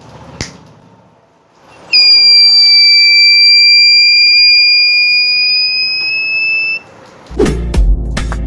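Buzzer of a homemade diode temperature-sensor alarm circuit sounding one steady high-pitched tone for about five seconds, creeping slightly up in pitch before it cuts off: the circuit's heat alarm. A click comes just before it, and music with a beat comes in near the end.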